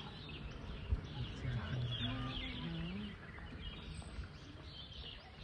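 Wild birds chirping steadily in forest, with a sharp knock about a second in and a low murmur of voices partway through.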